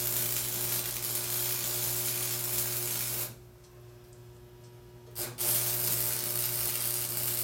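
Stick arc welding on steel: the steady crackling sizzle of the arc during tack welds. The arc stops for about two seconds in the middle, then strikes again with a short burst and runs on. A low steady hum stays underneath.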